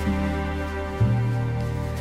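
Instrumental backing of a soft ballad between sung lines: sustained chords over a bass, with the bass moving to a new note about a second in.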